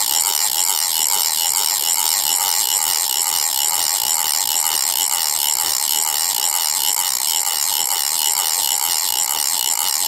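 A ratchet crank being wound continuously, its pawl clicking over the teeth in a fast, even run at a steady level.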